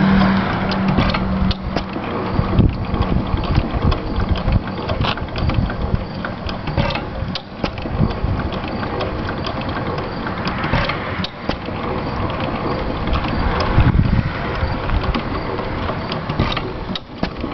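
2 hp IHC Famous vertical hit-and-miss engine running, a dense, irregular clatter of clicks and knocks.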